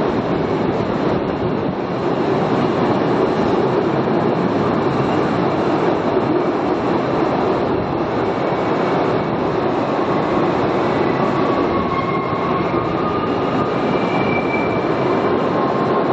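Cave tourist train running steadily along its track, a continuous rumble of the open cars and wheels on the rails, heard from on board. A few faint, thin squealing tones appear in the second half.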